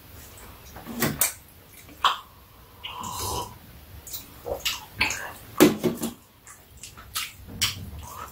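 Close-up eating sounds: bites into crisp Korean pear slices and chewing of soft rice cake, with wet lip smacks and scattered sharp clicks.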